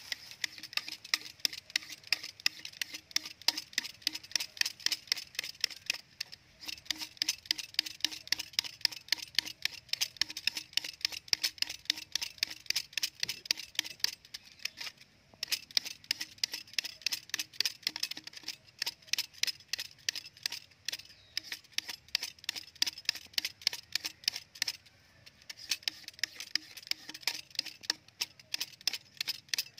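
A utility knife blade scraping the outer skin off a bamboo tube in rapid, even strokes. It pauses briefly three times.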